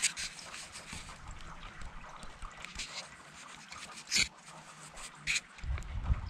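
Light rain with a faint steady hiss and a few sharp drip taps, then a low rumble over the last second.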